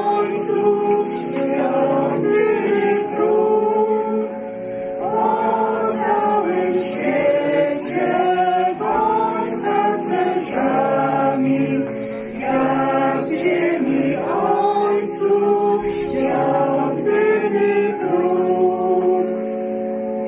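A small group of women singing a song together, in short phrases with held notes.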